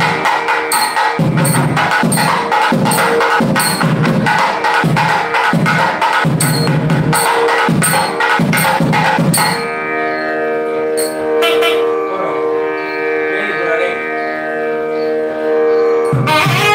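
South Indian temple music: a steady drone under a fast drum rhythm. About ten seconds in, the drums drop out and a sustained melodic line carries on over the drone. The drums come back near the end.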